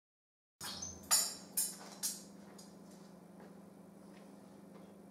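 A few sharp clinks and knocks, four in quick succession in the first two seconds, then only a steady low electrical hum.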